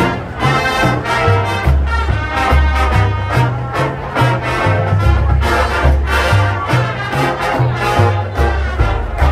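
A high school marching band's brass section playing a swing tune, with a stepping bass line from the low brass under trumpet and trombone chords.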